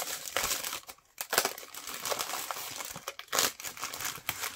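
Plastic packaging crinkling and rustling as bubble wrap, foam padding and a plastic mailer are handled and pulled at, in irregular scrunches with a brief lull about a second in.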